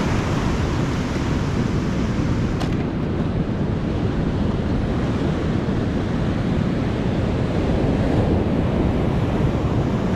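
Surf breaking and washing up a beach, a steady rush of waves, with wind on the microphone adding a low rumble.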